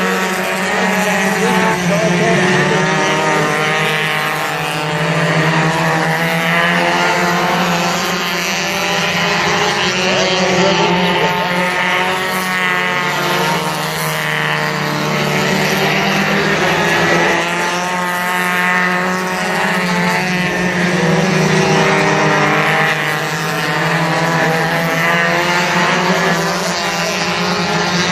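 Mini stock race cars' four-cylinder engines at racing speed, several at once, their notes rising and falling as the cars accelerate through the turns and pass the grandstand.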